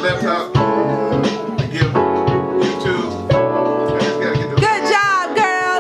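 Girls singing a song together over a piano accompaniment.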